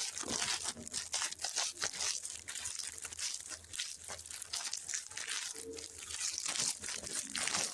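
Packaging crinkling and tearing: dense, irregular crackles of plastic or foil wrappers being handled and opened.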